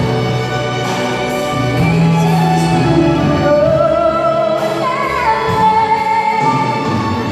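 A solo female voice singing a slow melody, with wavering held notes in the second half, over a string orchestra of violins and cellos, live in a large echoing church.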